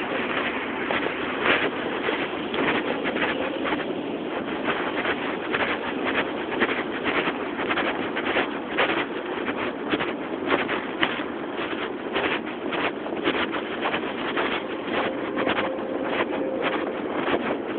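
City street noise from passing traffic, with the footsteps of someone walking on the sidewalk clicking through it about twice a second.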